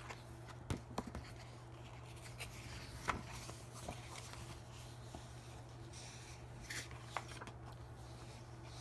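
Pages of a picture book being turned by hand: soft paper rustling with a few light taps and crinkles, the sharpest a little after three seconds in, over a low steady hum.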